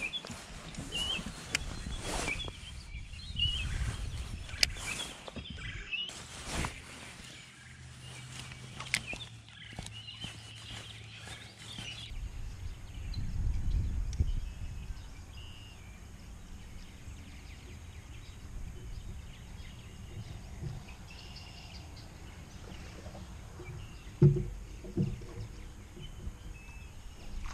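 Outdoor ambience by the water with small birds chirping, over sharp clicks and knocks from fishing tackle being handled. Later there is a steady low rumble with fainter bird chirps, and a single sharp thump on the boat near the end, followed by a smaller one.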